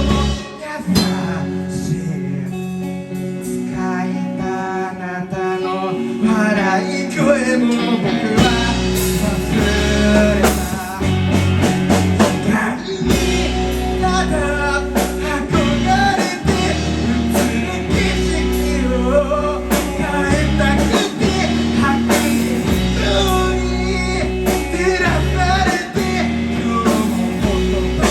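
A band playing live, with guitar to the fore; the bass end of the band comes in fuller about eight seconds in.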